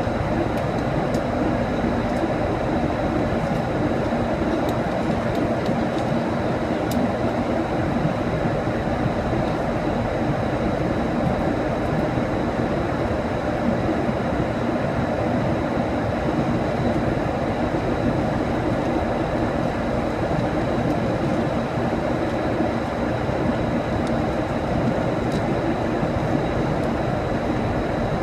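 Steady cabin noise of an airliner at altitude: engine and airflow noise that does not change, with a faint high steady whine.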